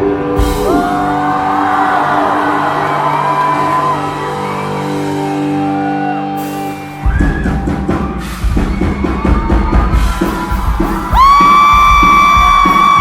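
Live rock band playing: a softer passage of held chords and singing, then about seven seconds in the drums and bass come in loudly, and near the end a long high note is held.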